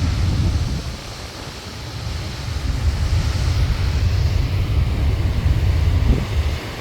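Typhoon-strength wind buffeting the microphone in a gusting low rumble, over the hiss of Pacific surf washing on a boulder beach; the surf hiss swells about three seconds in.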